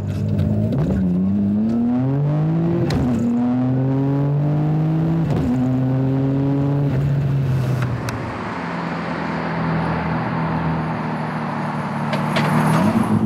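Nissan R32 GT-R's twin-turbo straight-six pulling through the gears of its dog-engagement gearbox: the revs climb, drop sharply at a quick upshift about three seconds in, climb again and drop at a second upshift about five seconds in, then settle to a steady drone. Near the end a louder rushing swell comes as the car drives past.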